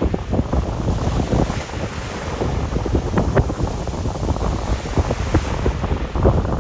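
Wind buffeting the microphone: a loud, gusty rumble with irregular crackling spikes.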